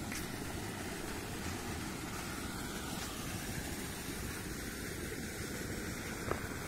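Irrigation tubewell running, with water gushing from its outlet pipe into a concrete tank: a steady, unbroken running noise.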